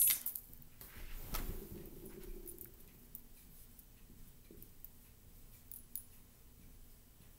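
Felt-tip marker writing on chart paper: faint, short scratchy strokes. A soft knock about a second and a half in.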